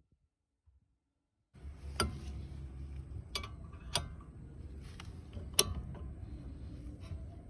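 A low steady hum starts about a second and a half in. Over it come four sharp mechanical clicks or knocks, the last one the loudest.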